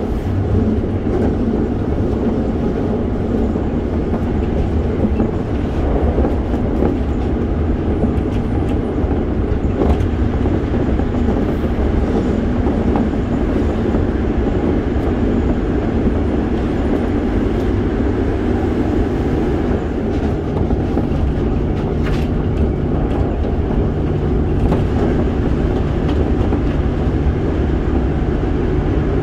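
Running noise inside a Toei 5300 series commuter train car: a steady, loud rumble of wheels on rail and car body, heard through a tunnel for most of it.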